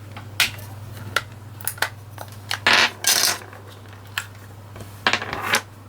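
Small plastic clicks and rattles of a TV remote control's battery cover being opened and its batteries pried out, with a couple of short scraping stretches between the clicks, over a steady low hum.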